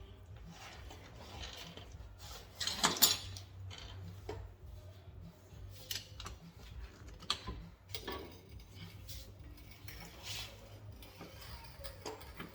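Metal hand tools and brake parts clinking and knocking as they are handled, in scattered strikes with the loudest about three seconds in, over a low steady hum.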